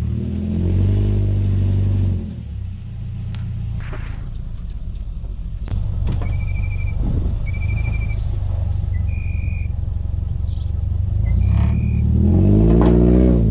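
A 2009 Subaru Outback's boxer engine running through its damaged old cat-back exhaust, whose Y-pipe at the right muffler is mangled. A steady low exhaust drone is broken by two revs that rise and fall, about a second in and near the end, the second the louder.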